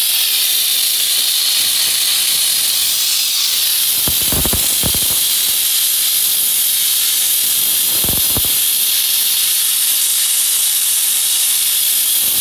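Handheld steam cleaner jetting steam through its scraper nozzle onto a stuck sticker on a vinyl tile floor, a loud, steady hiss. Two short crackles break in about four and eight seconds in.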